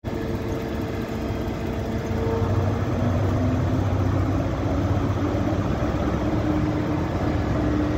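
Class 43 HST power car diesel engine running as the train draws slowly into the platform: a steady low engine hum with a held tone that rises slightly about three seconds in.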